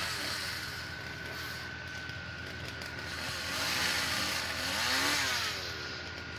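Pickup truck's engine working under load while towing a fifth-wheel travel trailer slowly up a rocky trail, with tyres rolling over loose rock. It grows louder for about two seconds past the middle, then eases back.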